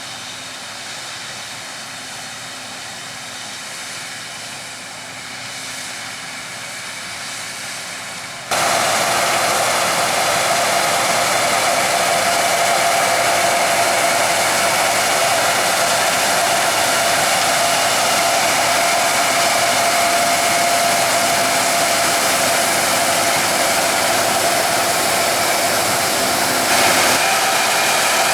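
Combine harvester running with a steady mechanical whir. About eight seconds in it cuts abruptly to a much louder, closer whir with a steady whine running through it.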